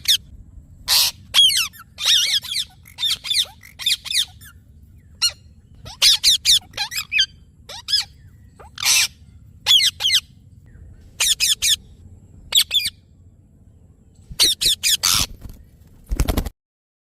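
Indian ringneck parrot giving short, sharp, high-pitched squawking calls in quick clusters, with pauses between them. A brief loud low-pitched burst comes near the end, then the sound cuts off abruptly.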